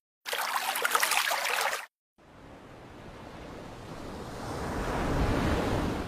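A short burst of crackling, crunching noise, then after a brief silence a rush of surf-like wave noise that swells steadily and peaks near the end.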